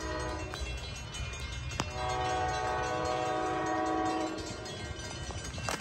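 An approaching NJ Transit train's horn sounds a chord of several notes: a short blast, then a long blast of about two and a half seconds. It sounds over the low rumble of the train, and a grade-crossing bell rings throughout.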